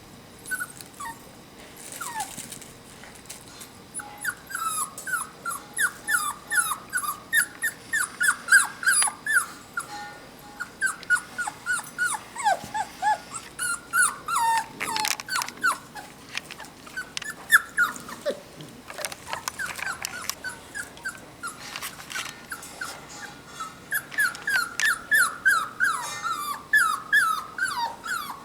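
Rottweiler puppies whining and whimpering: long runs of short, high, falling cries, several a second, with a few brief pauses, and scattered sharp clicks.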